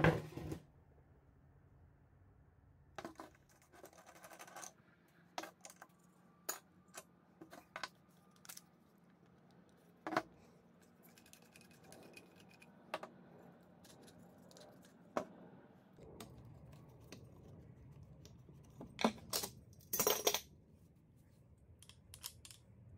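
Scattered metal clicks, clinks and knocks of a cordless angle grinder being taken apart by hand on a wooden table: battery, guard, flange and nut coming off and being set down. A loud knock right at the start and a quick cluster of clicks about twenty seconds in.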